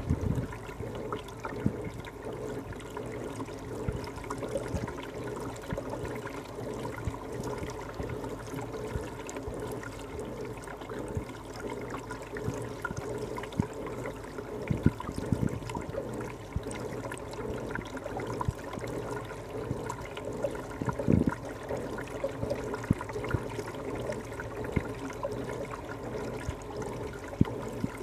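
Reef aquarium water circulation: steady trickling, gurgling water with a faint steady hum underneath. A few dull knocks stand out, the clearest about halfway through and again about two-thirds of the way in.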